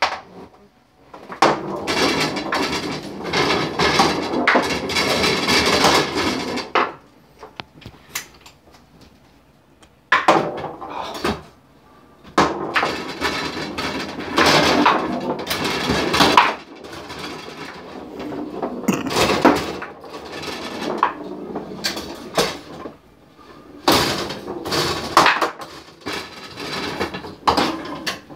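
Foosball table in play: rods sliding and spinning, plastic players knocking the ball, and the ball clattering off the wooden sides, in long busy flurries with a lull of a few seconds between the first flurry and the second.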